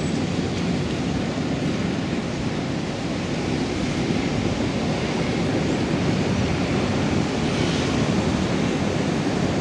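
Steady, even rushing noise of outdoor street ambience, with no distinct events.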